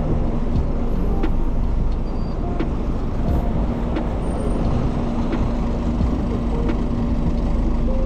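Road traffic on a city street: a steady low rumble, joined about halfway through by the even hum of a vehicle engine running.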